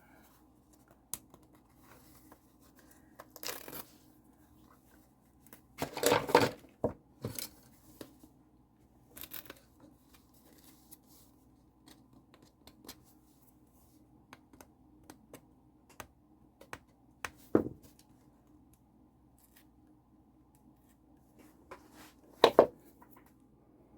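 Glued paper being peeled and torn off a book cover in short, scattered rips, the loudest about six seconds in and again near the end.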